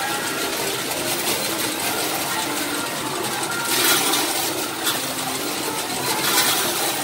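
Coins clattering in a Happy Circus coin pusher, with a steady arcade din of machine noise and scattered short electronic tones; two louder bursts of jingling coins come about four and six seconds in.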